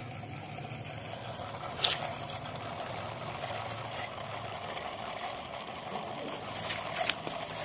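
Small battery-powered motor in a miniature model diesel engine running steadily, turning a toy water pump through a rubber-band belt, with the pump's stream of water splashing onto paving stones. A few brief clicks sound over the steady hum.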